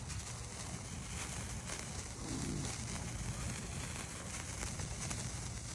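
Lit sparkler fizzing and crackling steadily, held close, with a fire burning in a fire pit just behind it.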